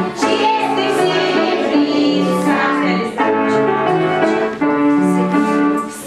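A song sung by children's and women's voices to piano accompaniment, in phrases with short breaks between them.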